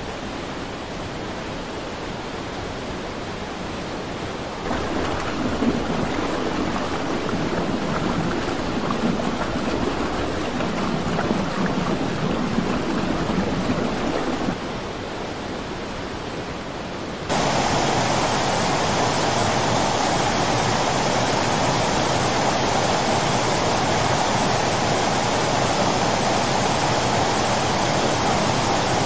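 Rushing muddy floodwater and heavy rain, a steady noise that gets louder about five seconds in, drops back briefly, then rises sharply again and holds.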